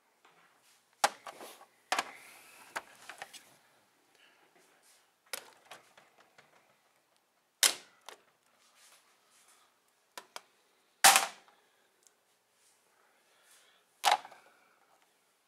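Hard plastic action figures knocking against a model building and the tabletop street mat: about seven sharp knocks a few seconds apart, the loudest about eleven seconds in.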